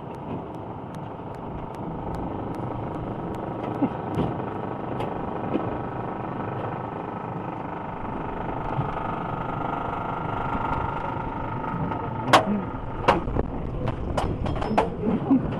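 Wooden roller coaster train climbing the lift hill: a steady rumble of the lift, with a whine building from about halfway up, and several sharp clacks near the top.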